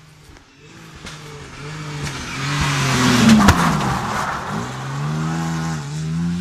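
Rally car engine revving hard as the car slides past close by through a corner, its pitch rising and dropping with each gear change. It is loudest as it goes by about three seconds in, with one sharp crack, then the pitch climbs again as it accelerates away.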